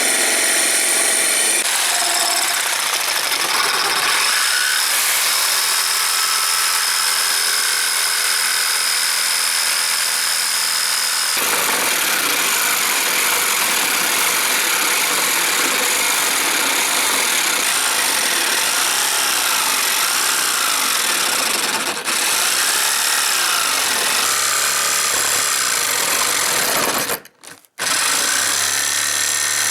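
Power tool grinding the metal of a motorcycle clutch part, a loud continuous rasp with a steady high whine for the first several seconds; the sound changes abruptly about eleven seconds in and drops out briefly near the end.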